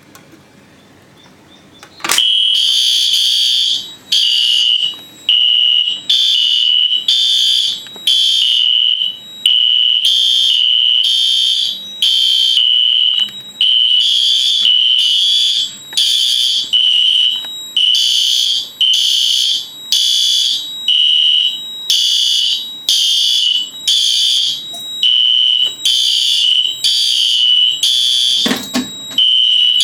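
A fire alarm horn goes off with a sharp click about two seconds in, as a manual pull station is pulled. It then sounds in repeated high-pitched pulses, the alarm signal of the system's notification appliances.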